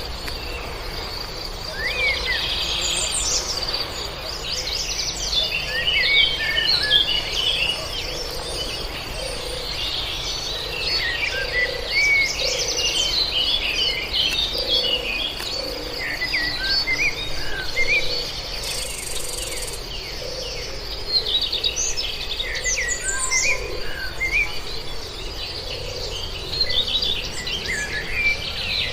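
Many birds chirping and singing over a steady high-pitched insect drone, with a low note repeating about once a second underneath.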